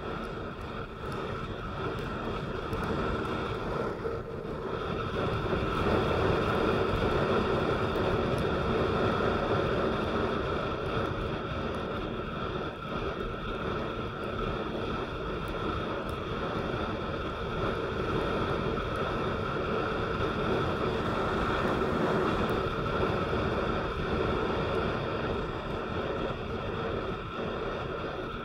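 A vehicle driving on a wet road in the rain, with steady tyre hiss and engine noise that grows louder about six seconds in.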